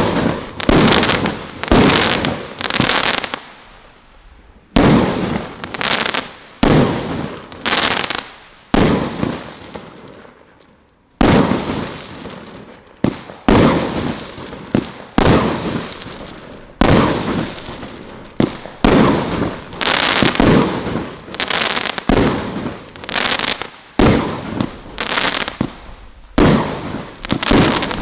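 Colour Crackles 25-shot, 25mm firework barrage firing shot after shot. Each sharp launch and burst trails off into crackling, with a short lull about ten seconds in.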